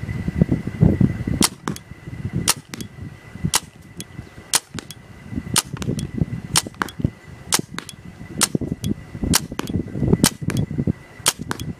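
Spyder Aggressor paintball marker firing shot after shot, sharp cracks about one to two a second, some in quick pairs.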